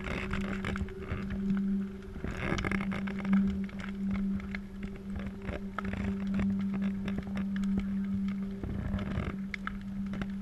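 A large wood fire crackling, with a steady low hum underneath.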